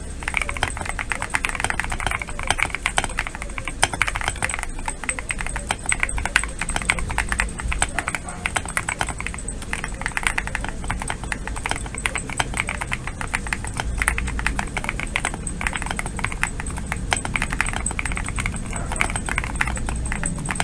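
Continuous fast typing on a GMK67 gasket-mount mechanical keyboard fitted with Gateron Queen switches and PBT aftermarket keycaps: a dense, unbroken stream of key clacks.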